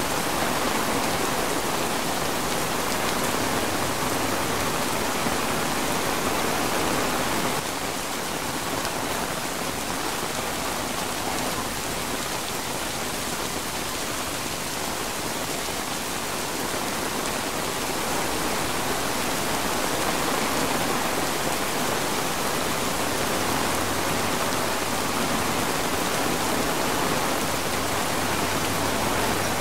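Steady rain falling on a flysheet tarp shelter, a dense, even hiss. It eases a little about a quarter of the way in and picks up again past the middle.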